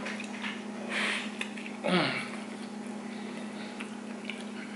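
Soft squishing and rustling of a bacon-wrapped Sonora hot dog bun being pulled apart and handled, with a short hum-like vocal sound about two seconds in, over a steady low hum.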